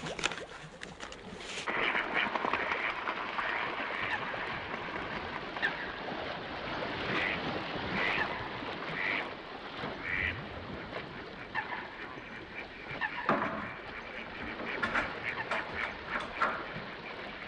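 Fowl calling: a series of short calls about a second apart over a steady noisy background.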